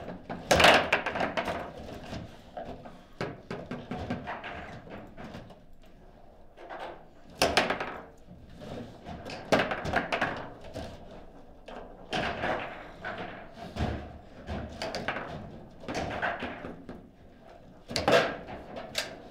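Foosball table in play: the hard ball and the players on the rods knocking against each other and the table walls, sharp strikes from shots and passes every second or two. Two of the strikes are loudest, about half a second in and near the end.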